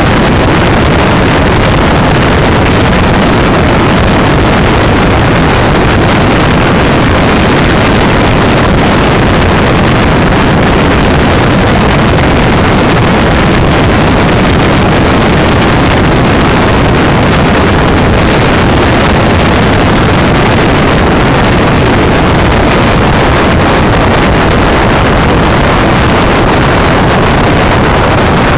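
Loud, steady rush of wind buffeting the microphone and tyres rolling on tarmac, heard on board a Greenpower single-seat electric race car travelling at speed.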